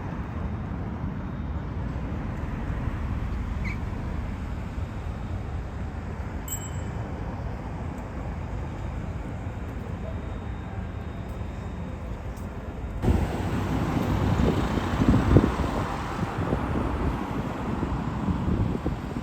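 Steady urban road-traffic noise, a continuous rumble of passing vehicles. About two-thirds of the way through it gets louder and rougher, with wind buffeting the microphone.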